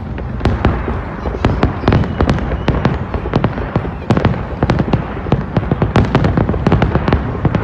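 Fireworks display: a rapid, irregular barrage of shells bursting and crackling, several sharp bangs a second over a continuous low rumble.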